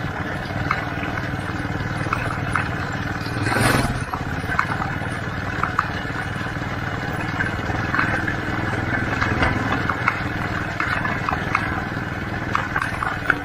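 Steady rumble of rolling over a rough dirt road, with scattered clicks and rattles and a short louder rush about four seconds in.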